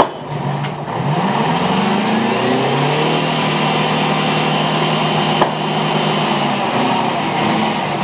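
Pulling unit's engine revving up, rising in pitch over a couple of seconds, then running steady at high revs as the rig hoists its traveling block, easing slightly near the end. A sharp metal clank right at the start and another about five and a half seconds in.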